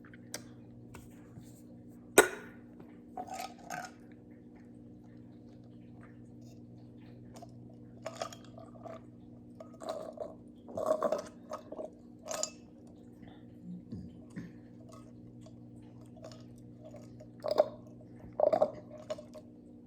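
A person gulping a cold canned drink in short bursts of swallowing, with one sharp click about two seconds in, over a steady low hum.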